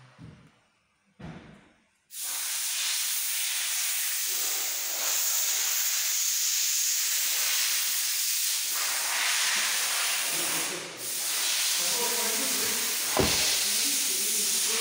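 A loud, steady hiss that starts abruptly about two seconds in and runs on, dipping briefly once. A single sharp click comes near the end.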